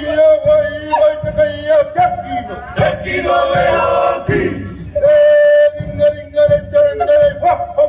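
Men's voices chanting in a Māori haka-style war chant, long held shouted notes repeated again and again, with sharp slaps between them.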